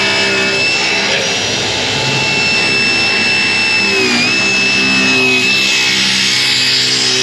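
Table saw ripping a long oak plank: a steady, loud blade whine over the motor's hum, briefly dipping in pitch about four seconds in as the blade takes the cut.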